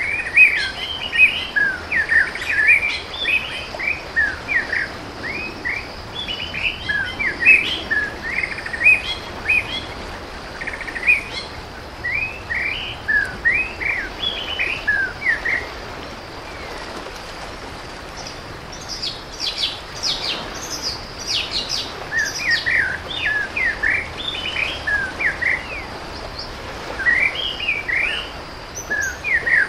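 Birds chirping: many short, overlapping calls, with a flurry of higher, quicker notes about two-thirds of the way through, over a steady background hiss.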